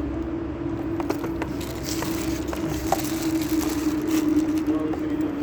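Light clicks and knocks of a BNC connector and DC power pin being handled and plugged onto a CCTV camera's leads, over a steady background hum.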